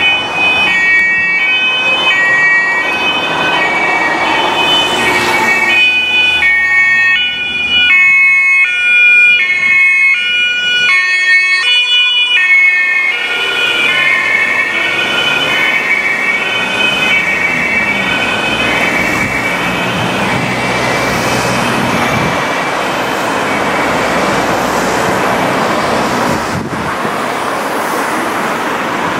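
Two-tone German police siren (Martinshorn) on a dog-handler van on an emergency run, switching between a high and a low tone about every two-thirds of a second. It is loudest around the middle, then fades under steady vehicle and road noise.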